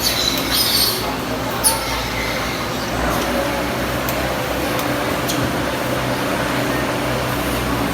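Dairy milking machines running: a steady vacuum-pump hum, with a few short hisses in the first two seconds.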